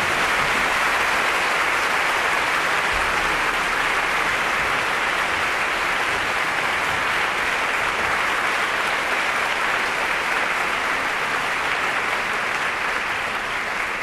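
Large theatre audience applauding, dense and steady.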